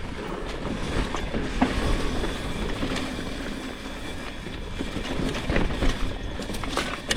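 Mountain bike rolling down a rough dirt trail: tyres on dirt with the bike rattling, and a few sharp knocks from bumps.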